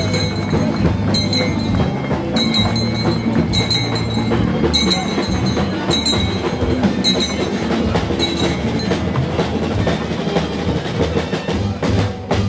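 Music with a steady driving rhythm over a low bass line, with a bright, sharp percussion strike about once a second that drops out about two thirds of the way through.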